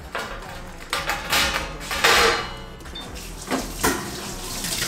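A thin stainless-steel tray being handled and scrubbed by rubber-gloved hands: a run of scraping, rubbing noises, the loudest about two seconds in, then two short sharp scrapes near the end.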